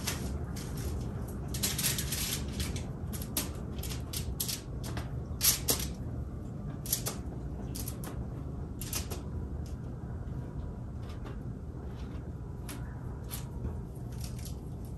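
Packaging and aluminium foil crinkling as pieces of cookie dough are taken from a box and set on a foil-lined baking sheet. It is an irregular string of short crackles and light taps, a few of them sharper, over a low steady hum.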